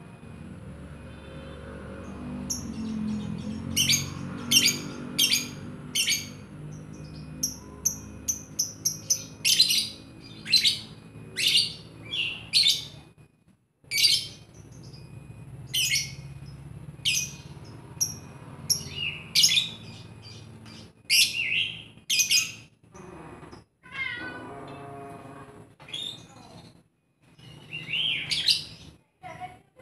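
Lovebird chirping: a run of shrill, sharp chirps, mostly about one a second, with a few quicker clusters.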